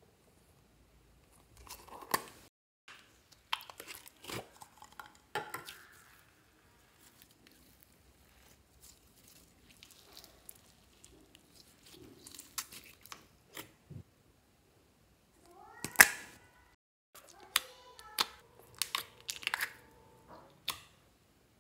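Hands working purple glitter slime: sticky crackling, squishing and wet popping as it is pulled and folded, with sharp plastic clicks from a slime tub. The loudest, a short squelching pop, comes about three-quarters of the way through.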